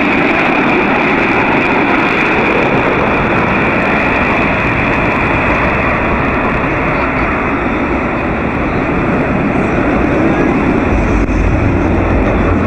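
Jet noise from the Blue Angels' six-ship formation of F/A-18 Hornets passing overhead: a loud, steady rush. It gains a deeper rumble near the end.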